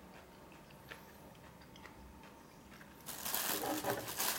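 Camera being handled and moved, rubbing against the microphone: a few faint clicks, then a loud crackling rustle for about the last second and a half.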